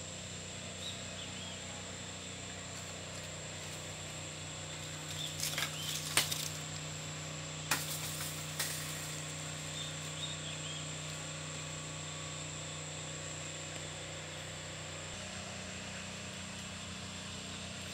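Steady background hum with a constant high whine, broken by a few sharp knocks and rustles about five to nine seconds in, and a few faint high chirps.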